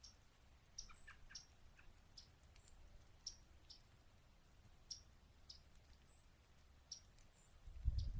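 Yellow-rumped warblers giving short, sharp chip calls at irregular intervals, with a few fainter high notes among them. A low thump comes near the end.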